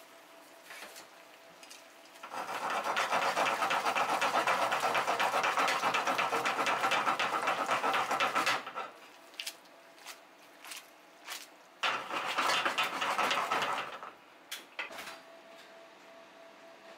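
Spaghetti being tossed with metal tongs in a hot frying pan of bubbling cream sauce, a wet sizzling and squelching in two bouts: a long one of about six seconds, then a shorter one of about two.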